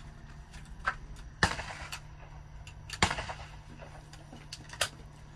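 Two sharp bangs about a second and a half apart, each with a short echoing tail, with a few fainter clicks around them.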